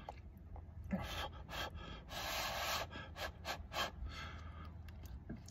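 A man breathing hard through his mouth, drawing several short breaths and one longer one about two seconds in, from the burn of spicy chili ramen.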